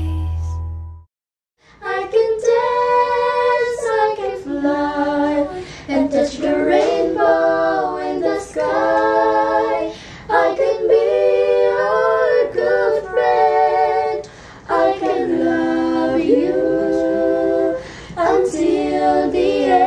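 A woman singing a slow song with little or no accompaniment, in sung phrases of a second or two with short breaks between them. The previous music fades out in the first second, then there is a brief gap before the singing starts.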